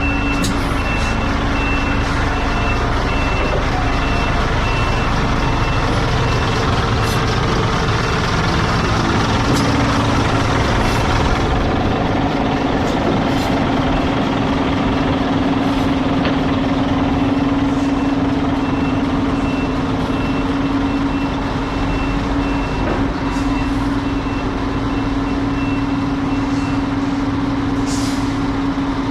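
A heavy truck's diesel engine running steadily, with its reversing alarm giving evenly spaced high beeps at the start and again through the latter part.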